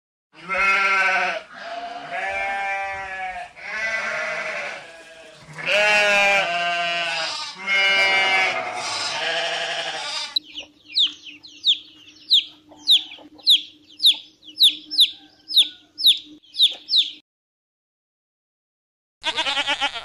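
Sheep bleating, about six long calls one after another. Then a run of short high chirps, each falling in pitch, about two a second over a low steady hum, which stops suddenly; a brief bleat comes just before the end.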